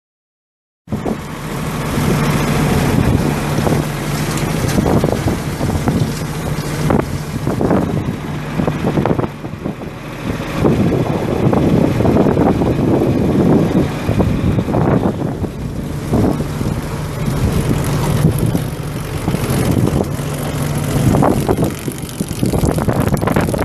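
An engine running at a steady speed under heavy wind buffeting on the microphone. The sound cuts in abruptly about a second in.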